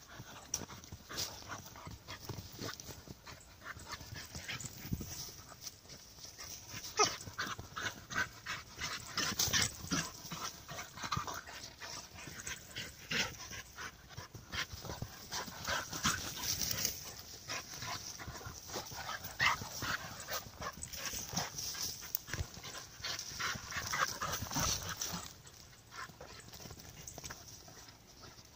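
A Brittany spaniel puppy and another young dog play-fighting: panting, scuffling paws and many short sharp sounds, busiest through the middle and quieter for the last few seconds.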